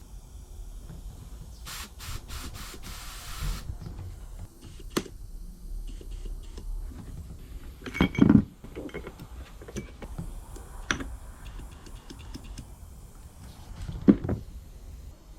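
Bench work on a motorcycle rear brake caliper: a short hiss of spray about two seconds in, then scattered knocks and clinks of parts being handled, the loudest a double knock about eight seconds in.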